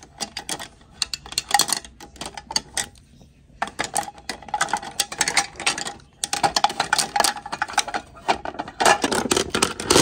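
Rapid clicking and crackling of packaging and items being handled and opened, in busy bursts with two short pauses.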